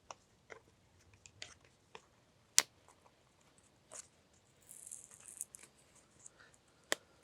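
Scattered light clicks and taps of a drill bit being swapped out of a drill, with a sharp click about two and a half seconds in and another near the end, and a brief high rustle around five seconds.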